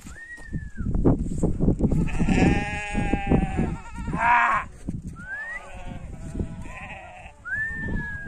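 A flock of sheep and goats bleating, with several calls one after another. The longest is a wavering bleat that starts about two seconds in and lasts over a second.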